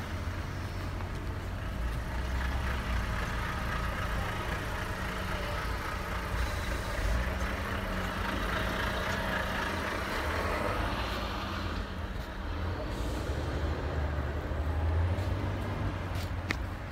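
Car engines and traffic running steadily on a snow-covered city street, with a low rumble. A few light clicks near the end.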